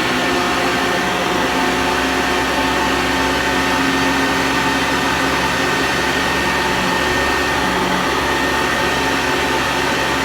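Sanitaire vacuum cleaner running steadily while vacuuming carpet: an even motor whine and brush-roll noise with a few held steady tones.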